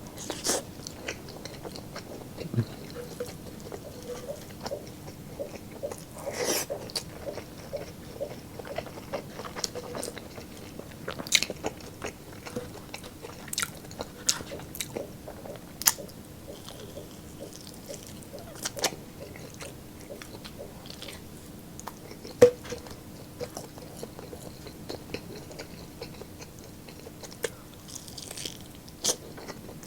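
Close-miked chewing and biting of a person eating lechon pork ribs and chicken with rice: wet mouth clicks and smacks with an occasional crunch, coming irregularly.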